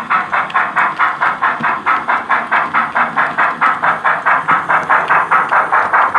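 Steam-locomotive exhaust chuffs played by the digital sound decoder of an OO gauge GWR 'Prairie' 2-6-2T tank engine model through its small onboard speaker, at a steady beat of about five chuffs a second.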